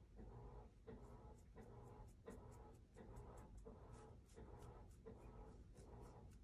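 Faint, soft strokes of a wet paintbrush over liquid resin, repeating about one and a half times a second, as it brushes out air bubbles; a faint steady hum runs underneath.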